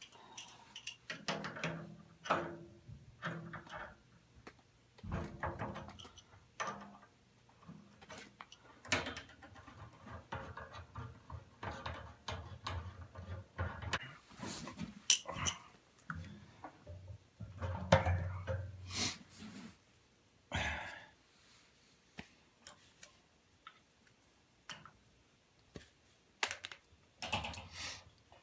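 Hand tools working on the gas fittings and burner assembly of a gas water heater: irregular metallic clicks, knocks and scrapes as a small wrench and socket driver loosen and disconnect the parts.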